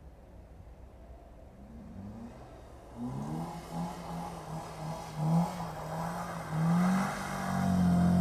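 BMW saloon engine revving as the car drifts on snow, growing louder as it comes closer. The revs rise and fall repeatedly with the throttle, then hold high and steady near the end.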